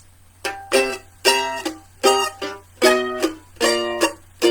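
A ukulele strumming chords in a steady rhythm, about two strums a second, as the instrumental intro to a song. A faint low hum sits underneath.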